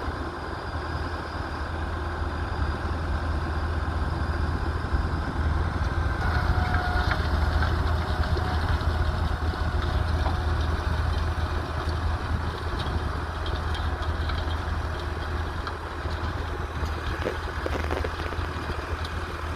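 New Holland tractor's diesel engine running steadily with a deep hum, getting somewhat louder from about six seconds in.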